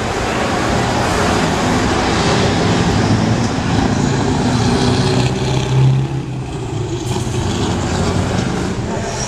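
Scania truck's open-piped V8 engine running as the tractor unit drives past, loudest about six seconds in, then fainter as it pulls away.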